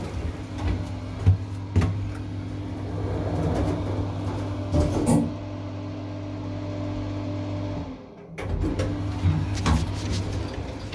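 Elevator car running, a steady hum with a few clicks and knocks on top. The hum cuts off about eight seconds in, followed by a few more knocks.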